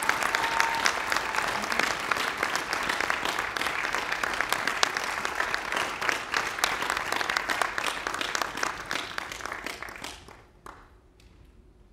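Audience applauding, many hands clapping steadily, then dying away about ten seconds in.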